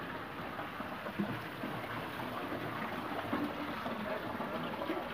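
Steady running and trickling water in a concrete fish-hatchery tank.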